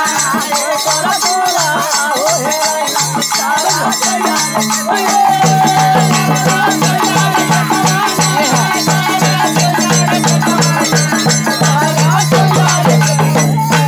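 Dhobi geet folk music played live: a dholak drum beats a fast, steady rhythm under a jingling metal rattle, with a voice over it. The drum pattern fills in and gets denser about five seconds in.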